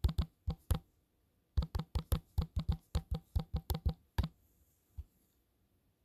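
Clicking taps of typing on a smartphone's touchscreen keyboard: a few scattered taps, then a quick run of about fifteen clicks as a search is typed, and a single click about a second later.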